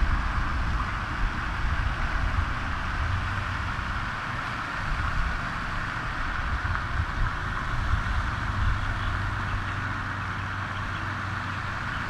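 Steady outdoor background noise: a constant hiss over an uneven low rumble, with no distinct events.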